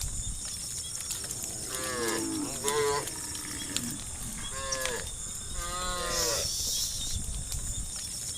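Cattle mooing: a call about two seconds in and a longer one about five seconds in, each dropping in pitch at its end.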